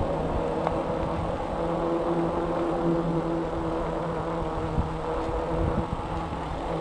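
Electric bike's motor whining steadily while riding, two steady tones with the pitch wavering slightly, over irregular wind rumble on the microphone.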